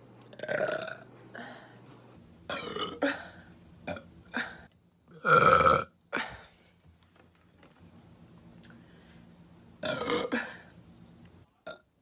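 A young woman burping again and again: about seven belches, short ones and longer ones, the longest and loudest about five and a half seconds in.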